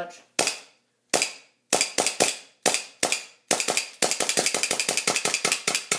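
Custom Kimber 1911 gas blowback airsoft pistol firing, each shot a sharp crack. Several shots come spaced about half a second apart, then a fast string of shots fills the last two seconds.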